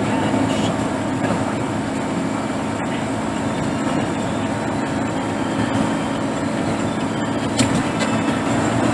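Steady cabin noise of a vehicle driving on a wet road, an even engine hum and road noise heard from inside, with one short click about seven and a half seconds in.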